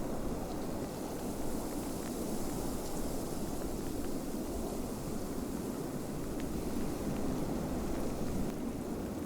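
Snowstorm wind blowing steadily: a low, even rushing noise with a fainter hiss of blowing snow above it.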